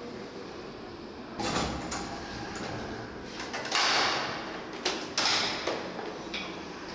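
An old cage lift's mesh sliding door being worked: a scraping slide about four seconds in, the loudest sound, with metal clanks and knocks before and after it.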